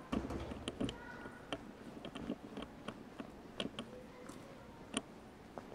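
Footsteps clicking on hard pavement: the irregular steps of several people walking, with sharp taps about every half second.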